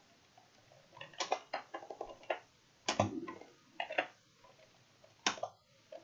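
Computer keyboard keys clicking in a few short clusters of keystrokes, as lines of code are copied and pasted.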